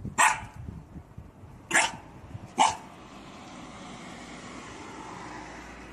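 A young dog barking three short times, spaced out over the first three seconds, then only a faint steady background hiss.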